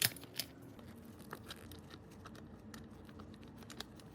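Faint handling noise of small bike parts and tools as a rear mudguard is bolted onto a child's bicycle: a sharp click at the start, another just after, then scattered light ticks and taps.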